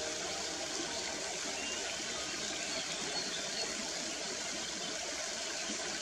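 River water rushing steadily over stones.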